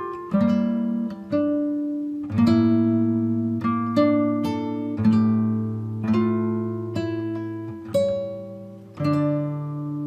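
Background music: plucked acoustic guitar notes and chords struck about once a second, each ringing and fading away.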